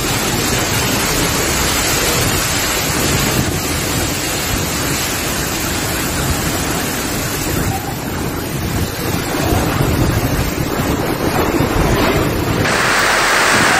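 Microburst storm wind gusting with heavy rain, buffeting the phone's microphone. Near the end it changes suddenly to a higher, hissier rush.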